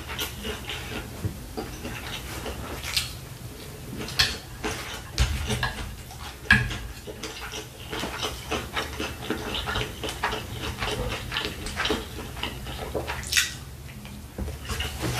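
Close-miked chewing and wet mouth sounds of a person eating fried rice, with a metal spoon scraping and clicking against the tray, as scattered sharp clicks.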